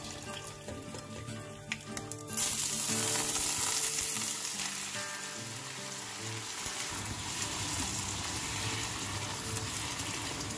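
Freshly blanched, still-wet cime di rapa (turnip greens) hit a pan of hot olive oil with garlic and chili and set off a sudden loud sizzle a little over two seconds in. The sizzle slowly eases as the greens are stirred, with a few light clicks of the pan just before it starts.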